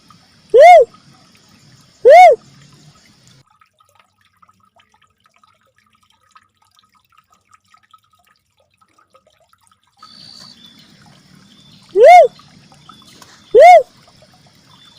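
Cuckoo-dove (uncal merah) calling: single hooting notes that rise and fall, about a second and a half apart, two near the start and two more near the end after a long pause.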